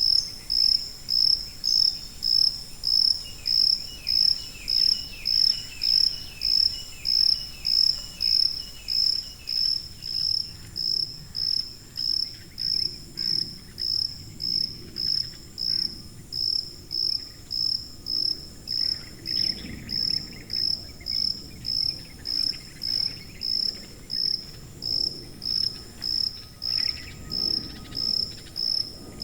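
Cricket chirping steadily in a high, even rhythm, a little under two chirps a second, with fainter, lower-pitched chirping behind it.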